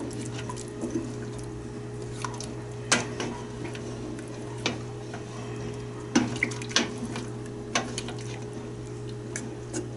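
A spoon stirring broth in a stainless steel stockpot, knocking and scraping against the pot's side now and then, about eight times, over a steady low hum.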